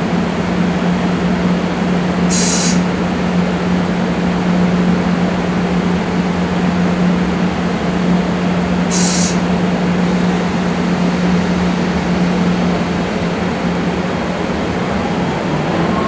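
JR EF64 electric locomotive standing with its blowers running: a loud, steady rush of air over a low hum. Two short high hisses come about two and a half seconds in and again about nine seconds in, and a rising whine begins near the end.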